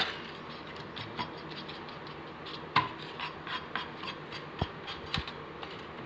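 Steel spoon pressing and scraping over a thick cashew barfi mixture in a butter-paper-lined steel tray, smoothing it flat, with scattered light clicks and taps where the spoon knocks the tray. The sharpest click is right at the start, with another a little under halfway through.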